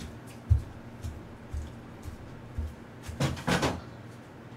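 Someone moving about a small room: a row of low thumps about twice a second, the first the loudest, then a short rustling scrape a little past three seconds in.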